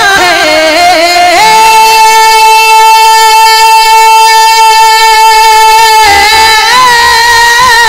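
Male naat reciter's voice, amplified through a microphone and loudspeakers, singing a long drawn-out high note: a few wavering turns, then one note held steady for several seconds, breaking back into wavering ornaments near the end.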